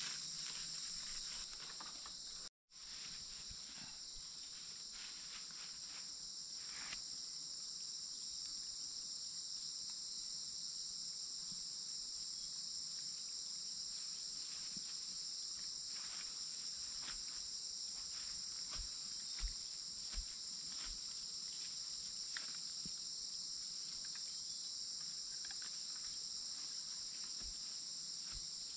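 Steady chorus of forest insects, a continuous high-pitched buzz, with faint scattered clicks and rustles. The sound cuts out for a moment about two and a half seconds in.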